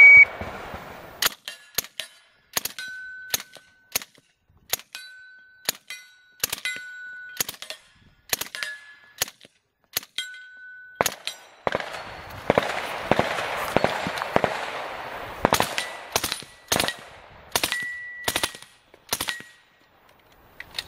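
A shot-timer beep, then a suppressed M11/9 submachine gun, fitted with a slow-fire conversion and a Bowers CAC-45 suppressor, fires quick strings of shots. Several strings are followed by steel targets ringing from the hits for about a second.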